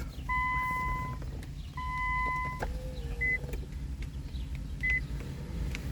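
Electronic beeps during smart-key programming: two long steady beeps of about a second each, a short lower tone, then two short higher blips. A low steady hum runs underneath.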